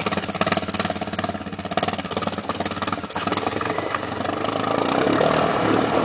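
Quad bike (ATV) engine running with a fast, even pulse while the machine sits deep in a river; about three seconds in, the wheels start churning the water and the sound thickens with splashing, growing louder toward the end.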